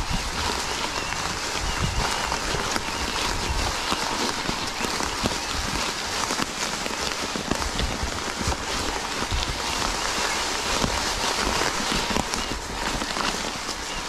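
Mountain bike tyres rolling over wet fallen leaves: a steady crackling hiss dotted with small clicks and rattles from the bike, with irregular low bumps and rumbles from the rough track under the handlebar camera.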